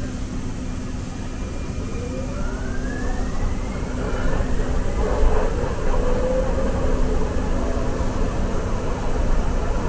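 Muni Metro light-rail car running, heard from inside the car: a steady low rumble, with a whine that rises in pitch from about two seconds in as the train picks up speed. The rumble grows louder after about four seconds.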